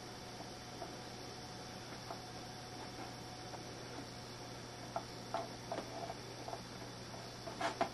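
Low steady hum with a few faint, scattered clicks, most of them in the second half, from a computer mouse being clicked.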